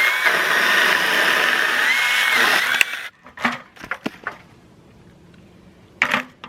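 Battery-powered mini chainsaw cutting wood, a steady motor whine over chain noise that rises briefly in pitch twice and cuts off suddenly about three seconds in. Then a few scattered knocks and clatters, with a louder knock near the end.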